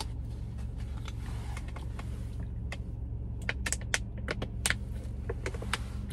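Sharp plastic clicks and crackles from a plastic water bottle handled and drunk from, bunched in the second half, over a car's steady low hum.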